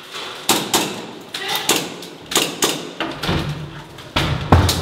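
A run of sharp knocks and clicks, irregular, a few a second, with two heavier low thuds near the end.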